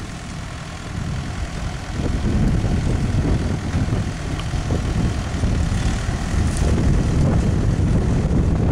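Small farm tractor's engine running steadily while it drags brush, growing louder about two seconds in.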